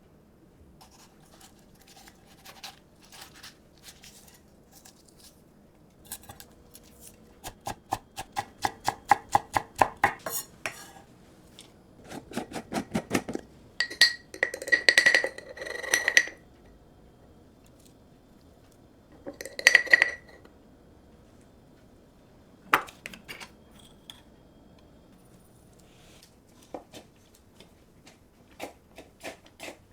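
Kitchen utensils knocking and scraping against a bowl or pan: scattered clicks, a fast even run of taps about a third of the way in, then a few ringing scrapes in the middle.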